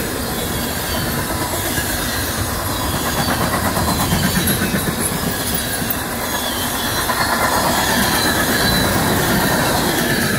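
Freight cars of a CSX local train rolling past at close range, the steel wheels clattering steadily on the rails.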